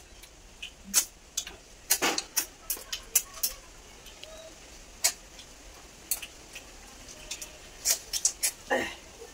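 Irregular sharp clicks and taps of snail shells and fingers against steel plates while eating rice and snails by hand, a few of them louder than the rest.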